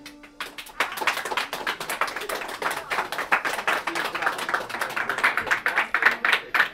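A small audience clapping, starting about a second in and continuing as quick, irregular claps.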